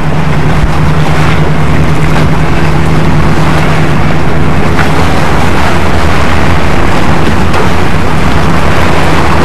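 A steady low engine rumble under a loud, even wash of noise.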